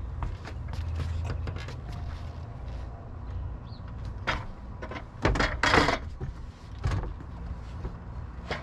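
A plywood bed panel being set down and slid into place on a wooden bed frame: a few knocks and a loud scraping clatter a little past the middle, with a last knock shortly after, over a steady low rumble.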